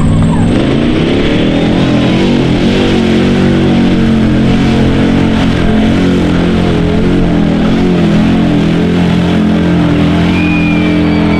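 Mud-bog truck's engine running hard at high revs through a mud pit, its pitch wavering up and down, then holding steadier near the end.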